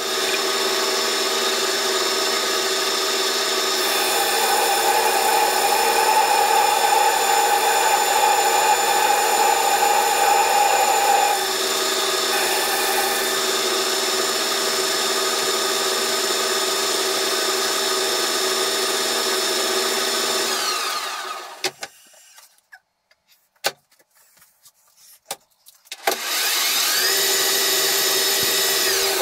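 Metal lathe at 800 RPM turning steel: a steady motor and gearing whine, with a stronger tone from about four seconds in, lasting about seven seconds, as the tool cuts. About twenty seconds in the lathe spins down to a stop, a few sharp clicks follow, and near the end it starts again and spins back up.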